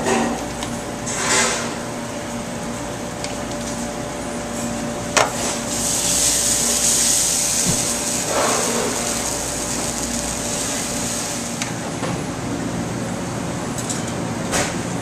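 Frying pan of bubbling butter sizzling on a gas burner over a steady mechanical hum. There are sharp metal knocks of the pan at the start and about five seconds in. From about six seconds in a louder hiss lasts about five seconds while the pan flares up in flames.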